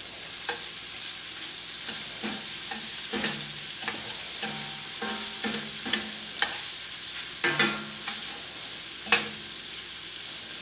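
Diced chicken thigh pieces sizzling in hot oil in a frying pan. A spatula scrapes and knocks against the pan every second or two as the pieces are turned, with the loudest strokes near the end.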